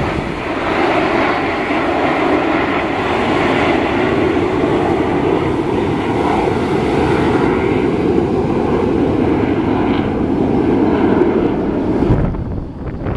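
A formation of Aermacchi MB-339 jet trainers, each with a single Rolls-Royce Viper turbojet, passing overhead with loud, steady jet engine noise. About twelve seconds in, the jet noise drops away and wind buffets the microphone.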